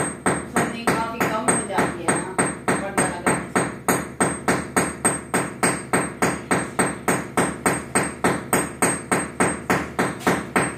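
A hammer driving a nail into a wall in quick, even blows, about three to four a second.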